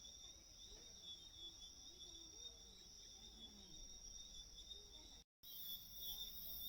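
Faint, steady chorus of shrill insects such as crickets, holding two high, even tones. The sound cuts out for a split second about five seconds in, then returns with an added pulsing, very high trill.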